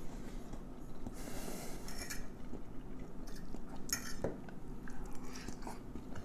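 A metal fork clinking and scraping against a dinner plate as food is picked up, with a few sharp clinks about two and four seconds in.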